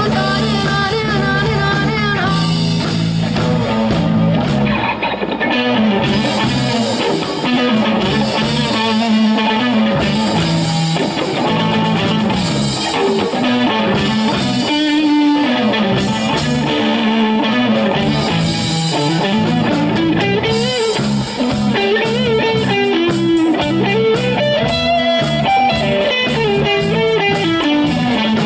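Rock band playing live: electric guitars and bass over a drum kit.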